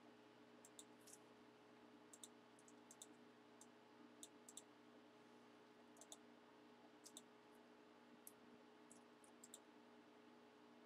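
Faint, irregular clicking of a computer mouse, one or two clicks a second, over a low steady electrical hum.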